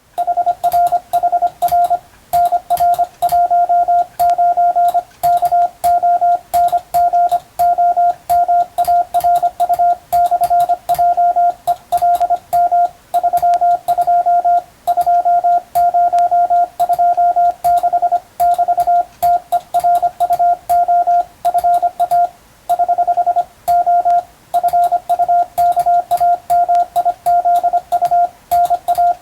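Morse code (CW) tone, a steady beep near 700 Hz, keyed by a telegraph operator as a continuous stream of dots and dashes with short gaps between letters and words, sending a practice telegram in Latin characters. Faint clicks go with the keying.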